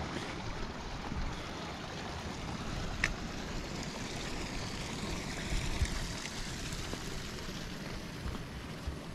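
Steady rushing outdoor noise with footsteps on a dirt mountain trail, and a single sharp click about three seconds in.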